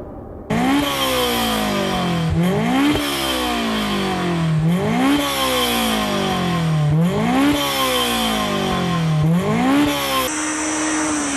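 Honda S2000's four-cylinder engine revved repeatedly through an aftermarket performance exhaust, about five times. Each time the pitch climbs quickly and then falls away more slowly. Near the end it cuts to a steady, even note.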